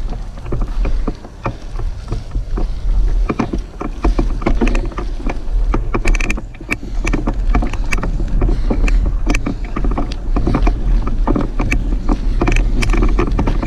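Mountain bike rolling over a bumpy dirt singletrack: steady low tyre and wind rumble on the action camera's microphone, with frequent rattles and clicks from the bike jolting over the ground.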